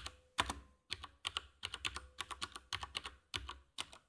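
Typing on a computer keyboard: quick, unevenly spaced keystrokes, about four or five a second.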